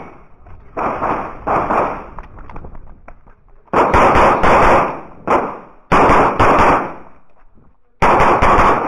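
CZ 75 Shadow pistol fired in quick pairs and short fast strings of shots, with pauses of a second or two between groups.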